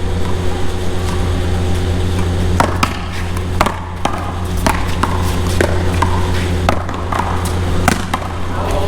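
One-wall paddleball rally: a string of sharp cracks as the rubber ball is struck by paddles and hits the wall, beginning about two and a half seconds in and coming roughly once a second, over a steady low rumble.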